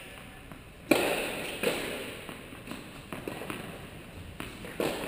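A few sharp tennis ball impacts echoing in an indoor tennis hall. The sharpest comes about a second in and another near the end, with lighter ticks between.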